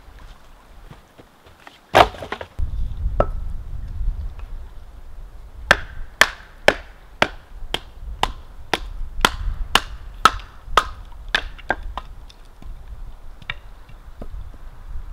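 A wooden baton knocking on the spine of a knife, driving the blade down through a charred log set on a stump to split it for firewood. One loud knock about two seconds in, then a steady run of about a dozen sharp knocks, roughly two a second, over a low rumble.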